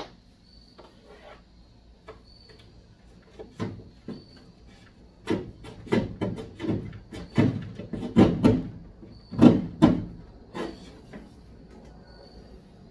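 14-3 electrical cable being handled and pulled through a trailer's ceiling gap, rubbing and knocking against the wall in a run of irregular thumps and scrapes from about three seconds in.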